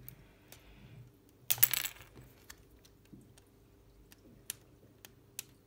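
Hard plastic LEGO Technic parts clicking and clattering as a small piece is pushed onto a buggy's wheel axle. There is one loud half-second clatter about a second and a half in, and a few light clicks after it.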